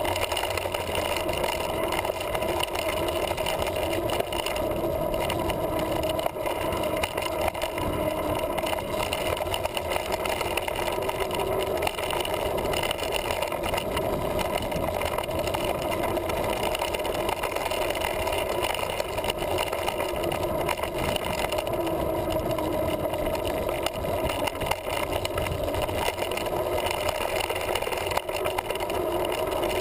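Steady droning rumble of a mountain bike rolling down a dirt trail, heard through a GoPro Hero's housing on a handlebar mount: wind, tyres on dirt and frame vibration blend into one constant hum without a break.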